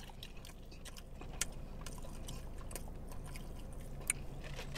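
Quiet eating and drinking sounds: drinks being sipped through straws and scattered small clicks, over a low steady hum.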